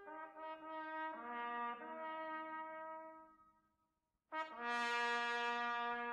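Background music of sustained brass chords: held notes that die away about three seconds in, a short silence, then a louder chord coming in about four seconds in.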